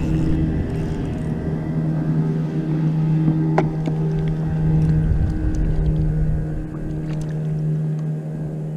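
A boat motor running with a steady, even hum that eases off near the end. A single sharp click sounds about three and a half seconds in.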